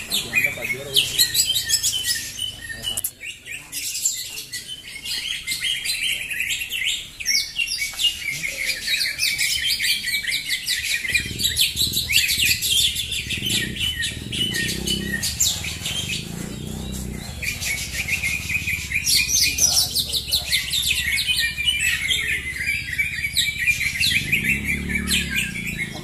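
Many caged cocak hijau (green leafbirds) singing at once: a dense, unbroken chorus of rapid chirps and trills. Low murmuring human voices join underneath from about eleven seconds in.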